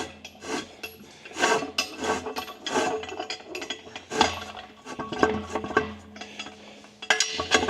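Irregular metallic clinks, clanks and scrapes of steel parts and hardware being handled and slid into place.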